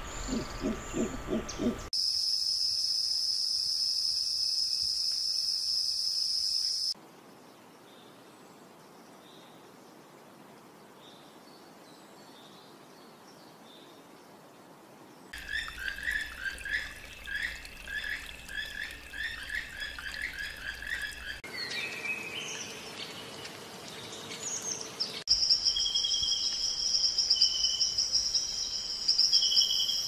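Several unrelated nature recordings follow one another. A howler monkey calls in rhythmic low pulses for the first two seconds. After a cut comes a steady high-pitched whine, then a faint quiet stretch, then quick high chirping of birds or insects, and near the end more steady high tones.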